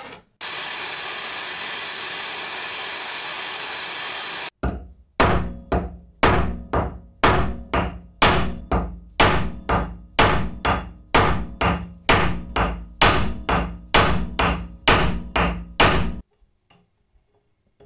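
A steady hiss for about four seconds that cuts off suddenly, then a hammer striking a thin steel rod on the horn of a small bench anvil to bend it: about twenty ringing metal-on-metal blows, a little under two a second.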